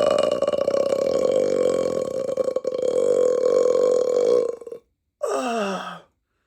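A person's long burp, held at a steady pitch, which the eater counts as an eight-second burp; it stops about four and a half seconds in. A short sound with falling pitch follows about half a second later.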